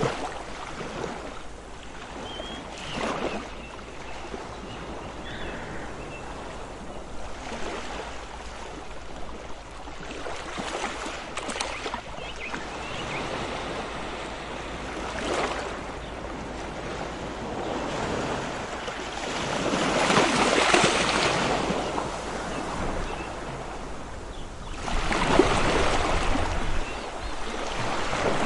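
Ocean waves washing in with a steady hiss and brief splashes, building to two longer, louder surges of surf, one about two-thirds of the way through and another near the end.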